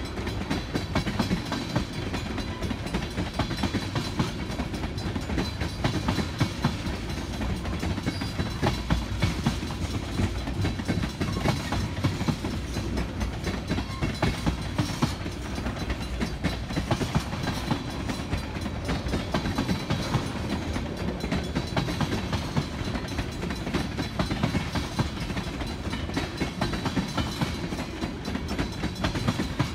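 Wheeling & Lake Erie freight train rolling past steadily, its steel wheels clicking over the rail joints under a continuous low rumble.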